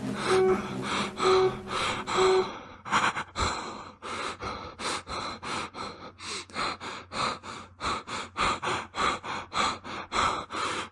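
Horror sound effect of rapid, ragged panting gasps, about three breaths a second. Under the first two seconds a single repeated music note carries on from the cue before it.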